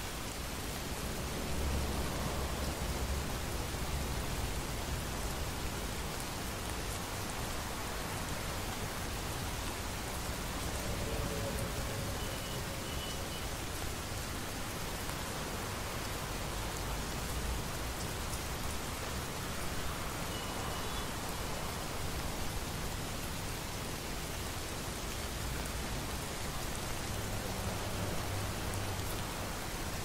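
Steady heavy rain of a thunderstorm falling on hard surfaces, with low rumbles of thunder a couple of seconds in and again near the end.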